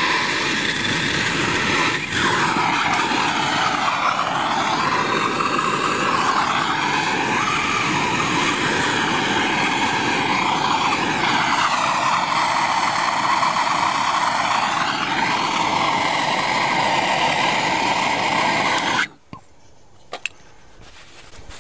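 A hand-held gas torch flame hisses steadily while heating a copper pipe union and melting solder wire into the joint. About 19 seconds in the torch sound cuts off abruptly, followed by a couple of faint clicks.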